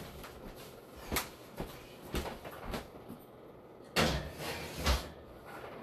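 Kitchen oven being closed up after a baking dish goes back in: a few light clicks and knocks, then two louder clunks about four and five seconds in.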